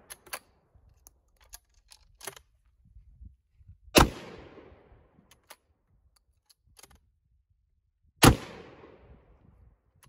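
Two shots from a Marlin Model 54 single-shot bolt-action 12-gauge shotgun, about four seconds apart, each a sharp bang followed by a long echoing fade. Light clicks and clacks come before and between them as the bolt is worked.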